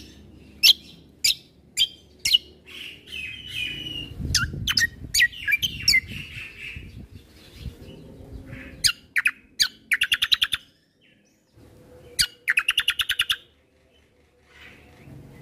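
Kecial kombo (cucak kombo) songbird in full song. A series of sharp, high chips leads into a few seconds of twittering phrases, followed by two fast rattling trills of about ten notes a second, one near the middle and one later.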